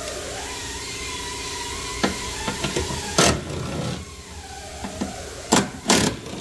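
Cordless drill/driver running, its motor pitch wavering as it turns a fastener, followed by a few sharp clicks and knocks about two, three and six seconds in.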